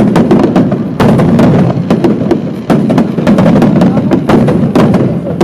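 Fireworks display with many shells bursting in quick succession: a continuous dense barrage of sharp bangs over a steady rumble.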